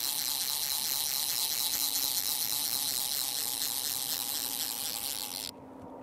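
Fly reel's click-and-pawl drag buzzing in a rapid run of clicks over a steady hiss as a small trout is reeled in. The hiss and clicking cut off abruptly about five and a half seconds in.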